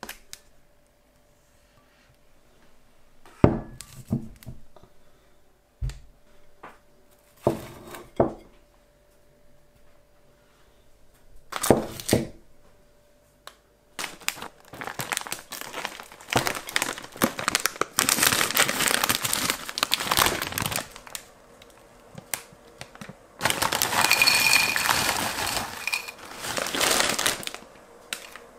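Items handled on a table with a few separate knocks, then long stretches of plastic packaging crinkling and rustling.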